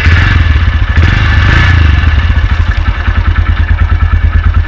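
Motorcycle engine just started, running a little higher for the first couple of seconds, then settling into a steady idle with an even, rapid exhaust beat from the silencer.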